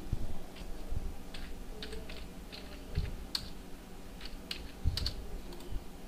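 Typing on a computer keyboard: irregular, quick keystroke clicks with a few dull thumps among them.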